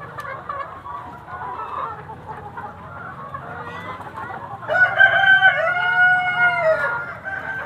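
A flock of chickens clucking and calling together, with a rooster crowing loudly for about two seconds just past the middle, the crow dropping in pitch at its end.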